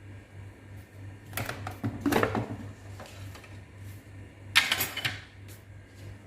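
Kitchen utensils and cookware clattering and scraping: a few short knocks and scrapes, the loudest around two seconds and four and a half seconds in, over a steady low hum.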